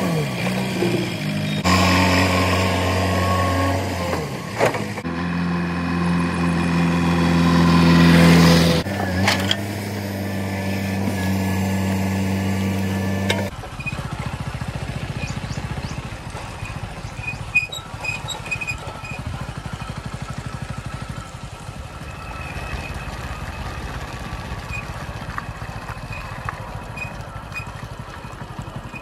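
A JCB 3DX backhoe loader's diesel engine running and revving in several short cut clips, followed about halfway through by a motorcycle engine running steadily at road speed with wind noise.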